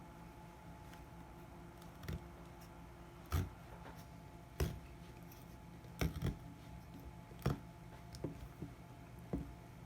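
Scissors snipping and clicking as they cut the inner insulation off a coaxial cable's copper core: about eight sharp, irregular snips, roughly a second apart, over a faint steady hum.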